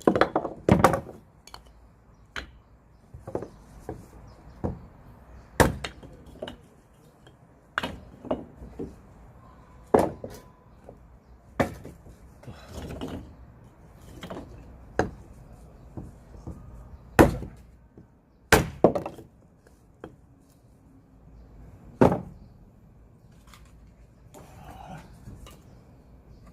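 Dry firewood being chopped: a dozen or more sharp wooden strikes at irregular intervals of one to two seconds, pausing briefly before a last strike a few seconds from the end.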